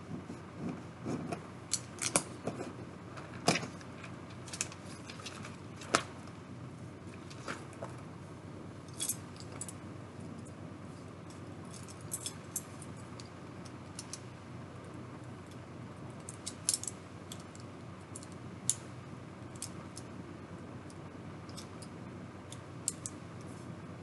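Loose Lego plastic pieces clicking and clattering as hands pick through and handle them. The sharp clicks come in scattered clusters and are busiest in the first few seconds.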